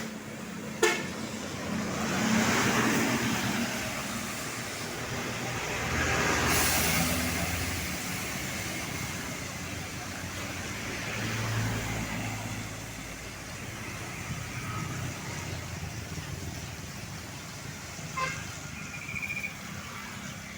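Road traffic: several vehicles pass by in turn, each swelling up and fading away over a steady road noise. There is a sharp click about a second in, and a few short tones near the end.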